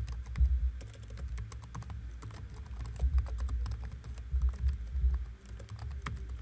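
Typing on a computer keyboard: a fast, uneven run of key clicks.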